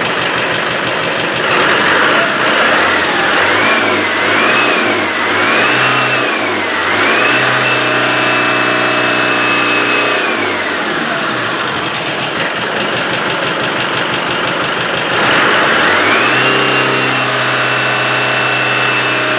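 Land Rover Defender 110 diesel engine, freshly rebuilt, revved by hand. It is blipped up and down several times, then held at high revs for a few seconds and let fall back to idle. Near the end it is revved up and held again. The owner suspects a broken piston ring, as the engine is pushing oil out of its breather.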